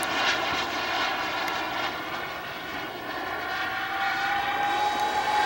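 Radio-controlled model jet's engine whining steadily as the plane flies overhead, easing off a little midway and growing louder again near the end.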